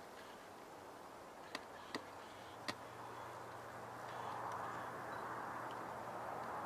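Faint rushing background noise that swells about four seconds in, with a low steady hum beneath it and a few sharp clicks in the first three seconds.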